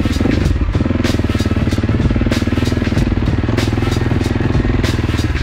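AJP PR7's single-cylinder engine running under way on an off-road ride, with a brief drop in the engine note about 0.7 s in. Sharp ticks recur about every half second over it.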